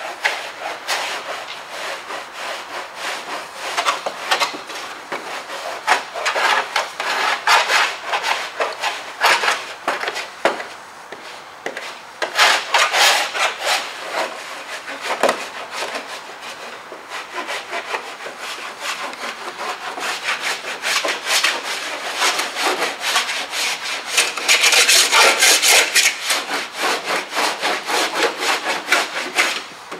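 Hand tool scraping across body filler (Bondo) on a car firewall, in rapid, uneven strokes, with the busiest, loudest runs of strokes a little under halfway through and again near the end.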